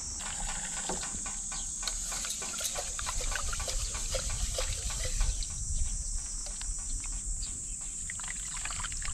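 Rice being washed by hand in water in a rice cooker's inner pot: water sloshing and grains rustling and clicking against the pot, with the rinse water poured off near the end.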